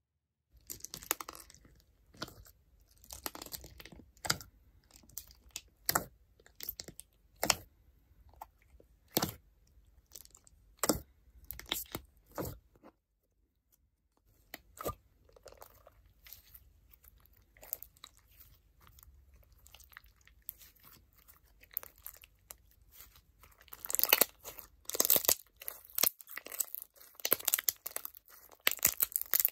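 Clear crunch slime handled and squeezed by hand, its crunchy base crackling and clicking. The clicks come singly through the first half, then grow denser and louder near the end as the slime is squished between the fingers.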